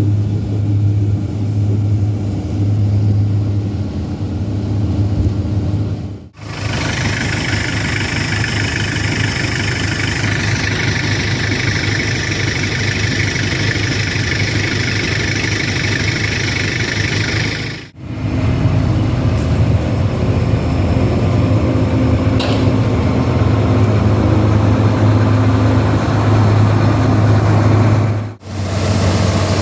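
Corn-harvest machinery running steadily, in three clips joined by abrupt cuts. A low engine drone comes first, then a stretch of denser, even machine noise in the middle, then the engine drone again.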